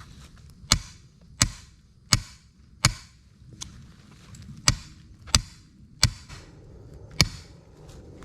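Repeated sharp blows driving a leg snare's cable anchor into the ground on the end of a drive tool, about nine strikes, roughly one every 0.7 seconds, with a brief pause around the middle.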